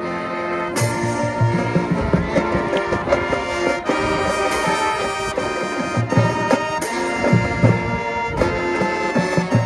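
High school marching band playing a brass-led selection: full held brass chords over a low drum beat, with cymbal crashes about a second in, midway, and about seven seconds in.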